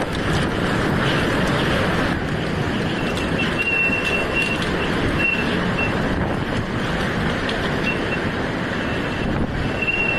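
Storm-force wind buffeting a phone microphone: a loud, steady roar, with a thin high whistle that comes and goes from about three seconds in.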